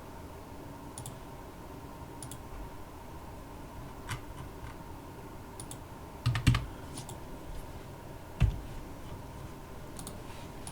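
Scattered computer keyboard keystrokes and mouse clicks, a few single clicks spread out, with a louder pair about two-thirds through and another loud click shortly after.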